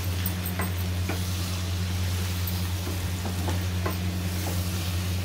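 Wooden spatula stirring potato and brinjal pieces in a kadhai, with scattered scrapes and clicks against the pan, over the steady sizzle of the vegetables frying in oil. A steady low hum runs underneath.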